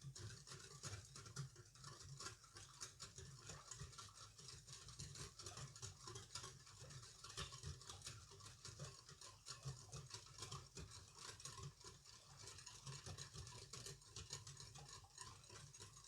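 Batter being mixed by hand in a bowl: a steady run of quick, irregular scraping and light clicking strokes.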